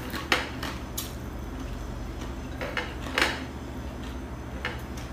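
Eating sounds: a few short, sharp crunches and clicks from chewing crispy chicharon (fried pork skin) and handling it over a plate. A steady low hum runs underneath.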